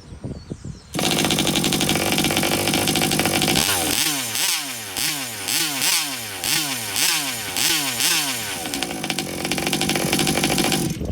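Small two-stroke gas engine of a large-scale RC car fires up about a second in, idles, is revved in quick throttle blips about twice a second, settles back, then cuts off abruptly near the end as the ignition kill switch cuts spark to the coil.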